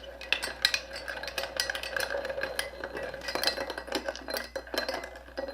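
Small metal diecast toy parts clinking and scraping against a hard container as they are handled, a busy run of irregular quick clicks.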